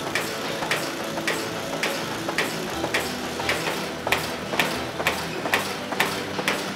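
Cardboard box folding machine running, feeding die-cut corrugated blanks: a regular clatter of about two clicks a second over a steady mechanical hum.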